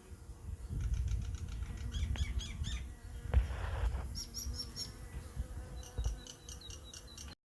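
Honeybees buzzing faintly around a freshly boxed swarm, while a bird sings three runs of quick, repeated high chirps over a low rumble. A brief rustle comes in the middle, and the sound cuts off abruptly just before the end.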